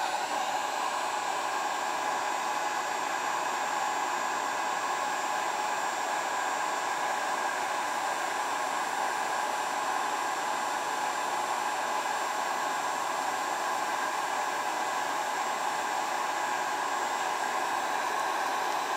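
Electric heat gun running steadily at its 600-degree setting, blowing hot air onto polyethylene plastic to melt it: an even rush of air with a steady whine from its fan motor.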